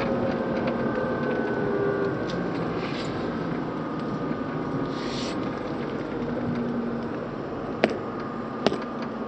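Steady mechanical hum with several held tones over a dense noise, and two sharp knocks about a second apart near the end.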